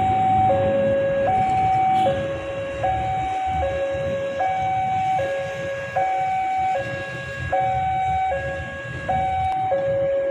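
Two-tone hi-low siren, switching between a higher and a lower steady tone just under a second each, repeating evenly, over a low traffic rumble.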